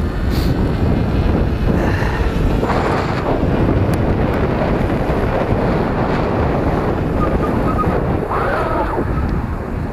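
Wind buffeting the microphone of a moving e-bike: a loud, steady rushing noise, heaviest in the low end.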